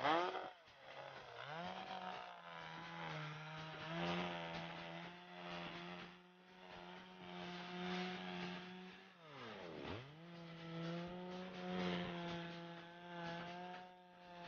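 Two-stroke chainsaw running at a steady high speed as it saws through lake ice. It revs up in the first couple of seconds, and its pitch drops sharply and climbs back about ten seconds in.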